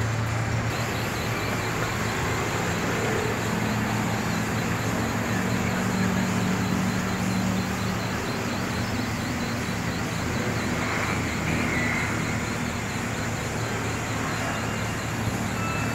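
Steady street traffic noise of cars and scooters, with an engine hum swelling for a few seconds about four seconds in.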